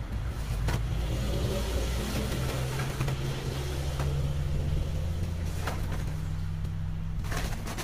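A car engine running steadily, with a few light knocks and rustles as pieces of firewood are put into a woven plastic sack.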